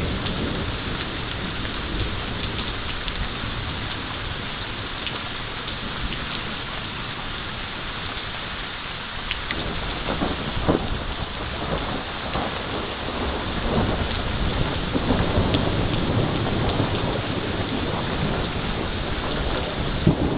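Heavy rain pouring down steadily, with thunder rumbling underneath. The rumble dies down over the first half and builds again from about halfway through, with scattered sharp drop hits.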